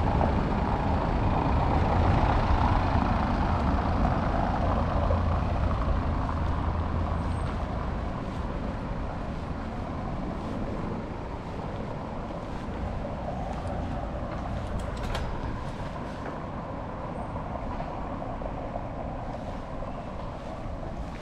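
City street traffic: a large motor vehicle rumbling, loudest at first and fading away over the first several seconds, leaving a steady lower traffic noise.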